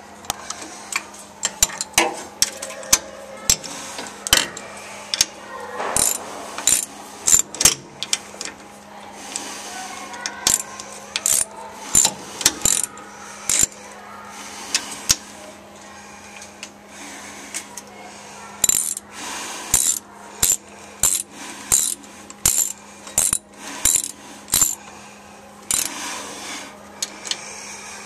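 Sharp metallic clinks and clicks, irregular and sometimes in quick runs, from a wrench working the flange bolts of a replaceable-core suction filter-drier shell while the bolts are snugged up. A steady low hum runs underneath.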